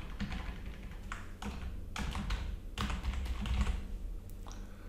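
Typing on a computer keyboard: a run of uneven key clicks.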